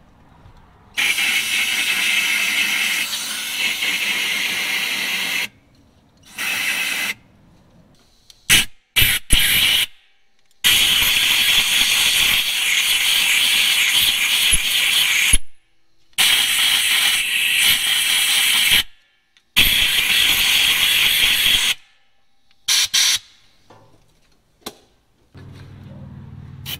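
Aerosol spray can hissing in a series of bursts, several lasting a few seconds with short blasts between, as penetrating lube and cleaner is sprayed into the unloader valve bores of a truck air compressor to free up stuck unloader valves.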